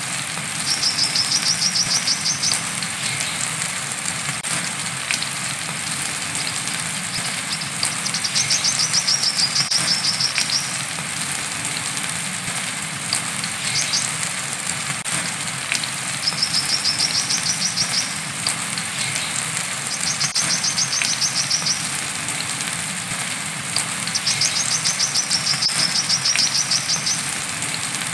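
Brown-throated sunbird (kolibri kelapa) giving its 'wiceh' song: rapid high-pitched trills about two seconds long, six times, over the steady hiss of rain.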